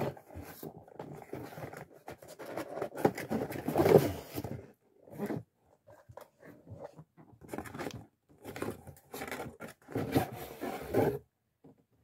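Cardboard and plastic packaging of a Furby box rustling and crinkling as it is unpacked, continuous at first and loudest about four seconds in, then in shorter bursts with gaps.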